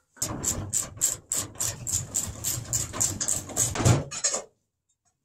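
Hand tool working on the rusty steel parts of a lawn cart: even, rapid metallic strokes about three a second, stopping about four and a half seconds in.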